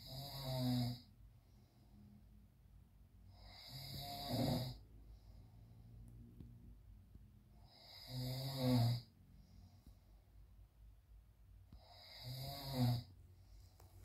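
A sleeping man snoring: four snores about four seconds apart, each swelling for about a second and cutting off sharply.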